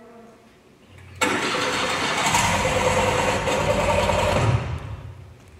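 Commercial ride-on lawn mower engine starting and running loud, played back through a hall's speakers. It comes in suddenly just over a second in and fades out about a second before the end.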